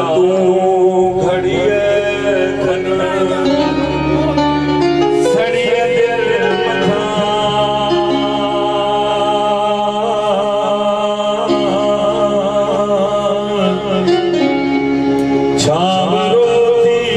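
Live Sindhi song: a man singing through a microphone, accompanied by an electronic keyboard playing held, sustained notes.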